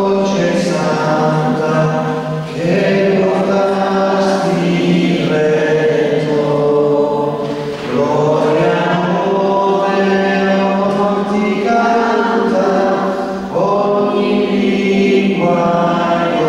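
A congregation singing a hymn together in Italian, unaccompanied, in long held phrases of about five seconds with short breaks between them.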